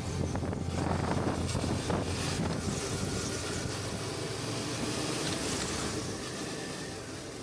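Wind buffeting the microphone over the steady engine and road noise of a Suzuki V-Strom 650's V-twin while riding along at speed. A low engine hum under the rush fades about halfway through.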